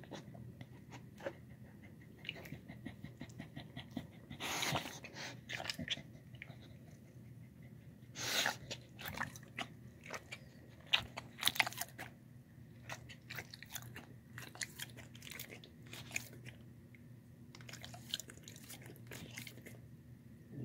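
A dog eating egg and boiled rice close to the microphone: irregular wet chewing, biting and mouth clicks, with a few louder bursts about 4 and 8 seconds in, over a low steady hum.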